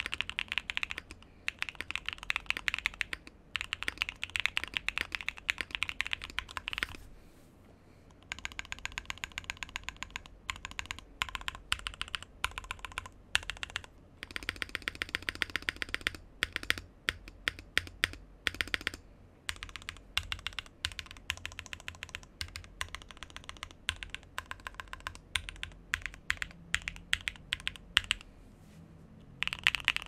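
Custom 60% keyboard (DeskDaily Artifact 60) with Gateron Summertime switches and Osume Dusk keycaps being typed on, a creamy keystroke sound: fast runs of typing, a brief pause, then slower single presses of individual keys, with quick typing again near the end.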